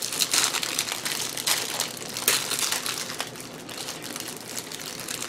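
Thin plastic Twinkie wrappers crinkling as they are peeled open by hand: irregular crackling with a few sharper snaps.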